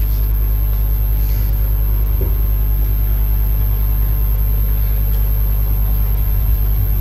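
A steady low hum with faint room noise over it, and no speech.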